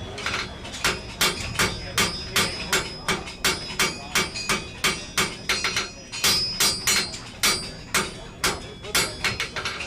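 Hand hammer striking hot iron on an anvil in a steady run of forging blows, about three a second, each with a short metallic ring.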